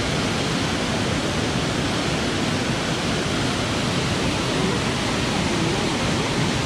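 Creek water rushing steadily over rocks, a constant even roar of flowing water with no let-up.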